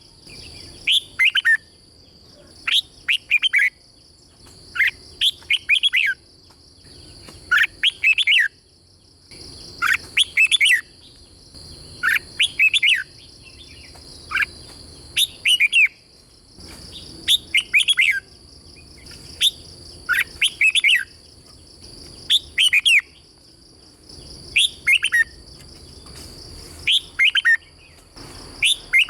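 Red-whiskered bulbul singing short phrases of quick, falling whistled notes, one phrase every second or two, with steady high-pitched tones running underneath.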